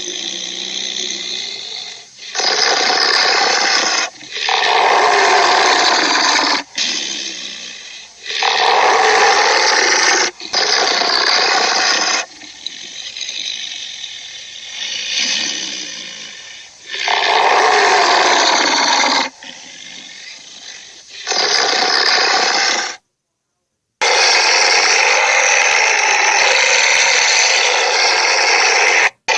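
A string of about a dozen monster roars and growls made as sound effects for the Trollsaur creature, each lasting a second or a few seconds and cut off abruptly before the next begins, with a brief silence partway through.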